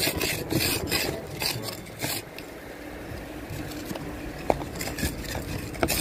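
Snow being scraped in short, repeated strokes, about two a second for the first two seconds, then softer, steadier rubbing with a couple of sharp clicks near the end.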